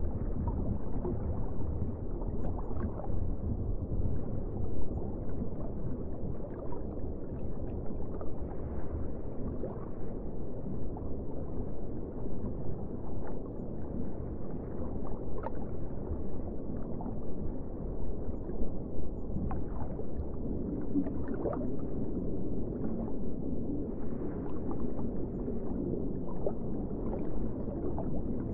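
Muffled underwater ambience: a steady low rumble and wash of water, with small bubbles gurgling and popping here and there.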